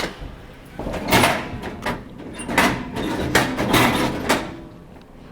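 Vending machine rattling and banging as it is shoved and rocked by hand, a run of knocks coming about every half second to a second, to shake loose a snack stuck inside.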